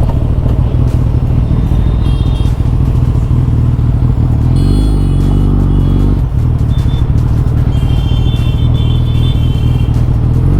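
Suzuki Hayabusa's inline-four engine running steadily as the motorcycle is ridden, with a brief dip about six seconds in.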